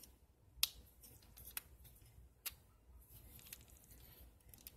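Hard plastic parts of a Mastermind Creations R19 Kultur transforming robot figure clicking and tapping as they are handled and worked into place. Three sharp clicks about a second apart, the first the loudest, then a few faint quick ticks.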